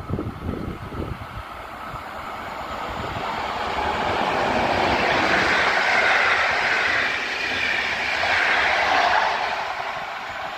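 An Intercity passenger train hauled by an EP07 electric locomotive passes through the station without stopping. The rolling noise of its wheels on the rails builds up, is loudest as the coaches go by, and fades as the train draws away. There are a few low thumps in the first second.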